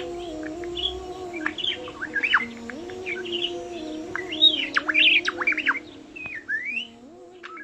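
Budgerigar chattering: a run of quick chirps and warbling notes that sweep up and down, busiest and loudest in the middle, with a rising call near the end.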